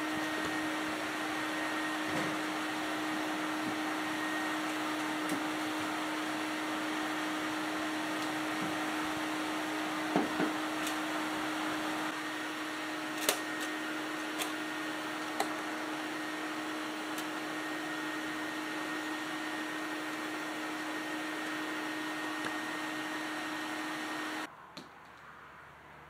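Electrolux Ultralux vacuum cleaner running with a steady hum and a faint high whistle, with a few small clicks along the way. It shuts off suddenly near the end.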